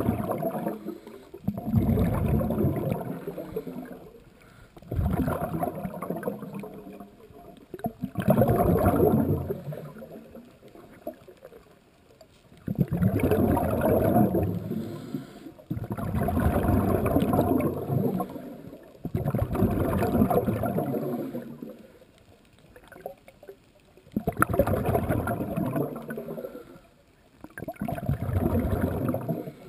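Scuba diver breathing through a regulator underwater: bubbling bursts of exhaled air roughly every three seconds, with quieter gaps between breaths.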